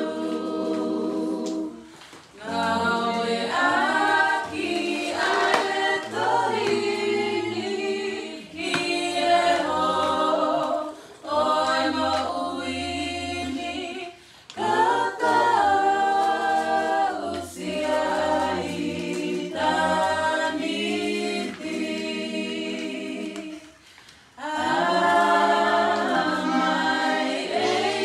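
A vocal group singing a cappella in harmony, in long phrases with short breaks between them.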